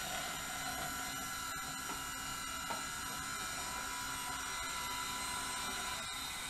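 Two Zemismart M027 smart curtain motors running along the curtain rod, a steady electric motor whine, as they travel toward the close limit set on them.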